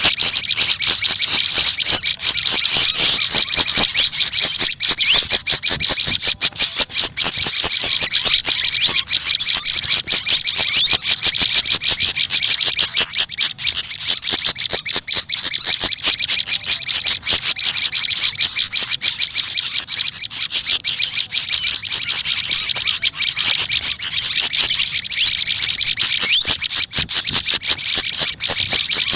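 Small songbirds calling in a fast, continuous, high-pitched chatter of rapid notes.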